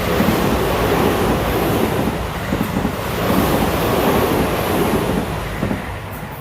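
A Seibu Railway electric commuter train passing close by: a loud, steady rush of rail and wheel noise that eases off near the end.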